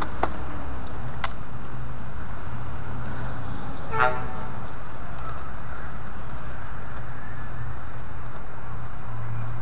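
Steady low outdoor rumble with a couple of light clicks near the start, and a short horn-like toot about four seconds in.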